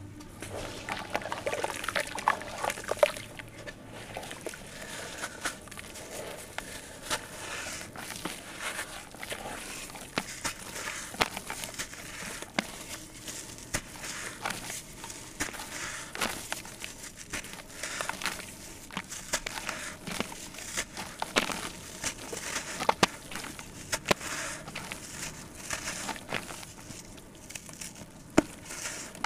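Soft sand-cement blocks crushed and crumbled by hand in a basin of water: irregular gritty crackling and crunching as the chunks break apart.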